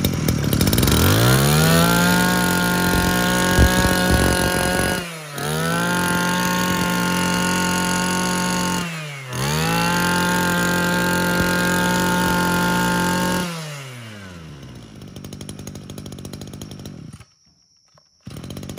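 Big M (Maruyama) KC26 26cc two-stroke brush-cutter engine revved up to high speed and held there, dipping briefly twice as the throttle is let off and opened again, then settling back to a lower idle before going quiet about a second before the end. It runs steadily, a sign of a healthy engine that the seller calls still very solid.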